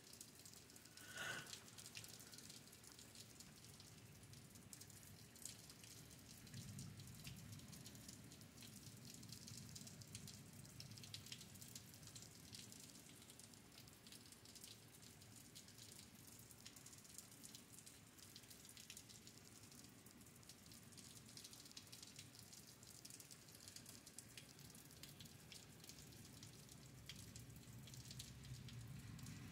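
Light rain falling: soft, faint dripping and pattering of raindrops. A brief high-pitched sound comes about a second in, and a faint low rumble runs underneath from several seconds in.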